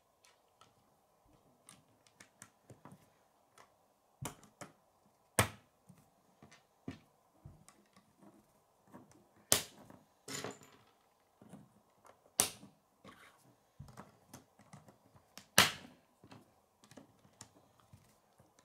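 K'nex plastic rods and connectors being handled and snapped together on a wooden table: irregular small clicks and taps, with four much louder snaps spread through.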